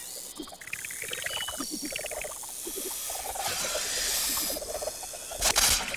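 Cartoon sound effects: rapid squeaky chittering calls voicing cartoon animals, with a hiss about midway and a short loud whoosh near the end.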